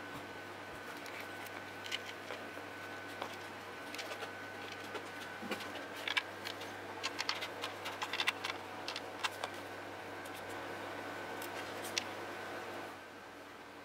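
Small metal washers and nuts clicking and ticking against each other and the threaded potentiometer shafts as they are fitted and screwed on by hand, with a run of light clicks in the middle and one sharper click near the end, over a steady faint hum.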